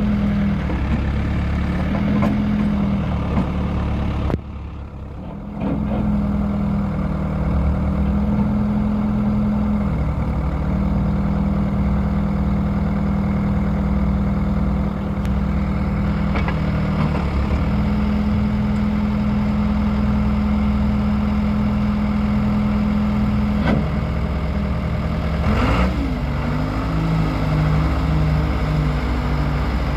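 Diesel engine of a John Deere 310D loader backhoe running steadily at low revs, its engine speed shifting a few times, with a short, quieter moment about four and a half seconds in.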